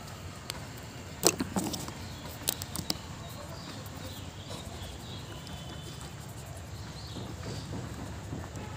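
Several sharp plastic clicks and taps from felt-tip markers, one loud click about a second in and a quick cluster of three a second later, as a marker is capped and another uncapped. A steady low hum of background noise runs underneath.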